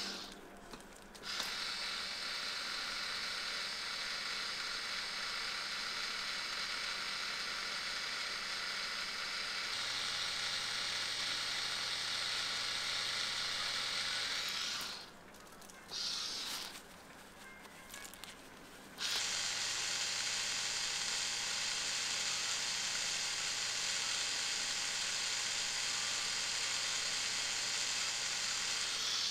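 Electric tattoo machine buzzing steadily as its needle works ink into skin, stopping for a moment about a second in and again for about four seconds midway before running on.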